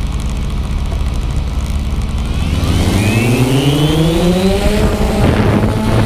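Xiro Xplorer G quadcopter's electric motors and propellers idling with a low hum, then spinning up in a rising whine about two seconds in as the drone lifts off, and settling into a steady hum near the end. Heard close up from the camera mounted on the drone.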